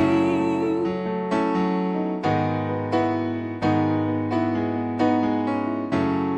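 Instrumental break of a slow worship ballad: a piano plays sustained chords, struck roughly once a second. The singer's last held, wavering note trails off within the first second.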